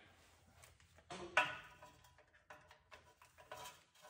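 Scattered metallic clicks and clinks of hand tools working near the starter under the car, with one sharper, briefly ringing clink about a second and a half in.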